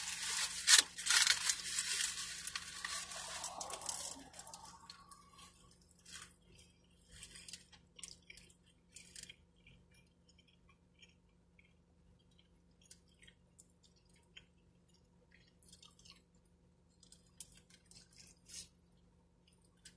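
Aluminium foil crinkling loudly as it is peeled back from a burrito for about the first four seconds, with one sharp crackle just under a second in. Then faint, scattered chewing and lip-smacking as the burrito is eaten.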